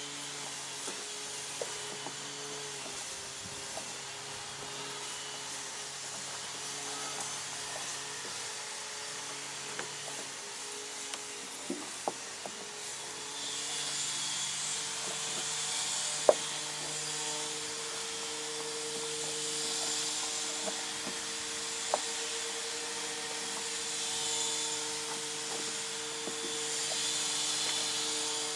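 Rubbing and scattered sharp clicks as a soft rubber hand expander is stretched and worked onto a car's front coil spring, growing into a steady scraping hiss about halfway through, over a steady low hum.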